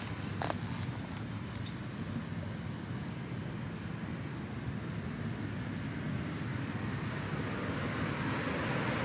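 Steady outdoor background noise, a low rumble with hiss and no distinct events, growing slightly louder near the end.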